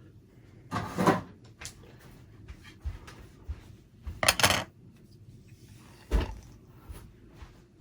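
Small tools and parts being handled and set down on a workbench: two clattering, rustling bursts about one and four seconds in, then a single sharp knock about six seconds in.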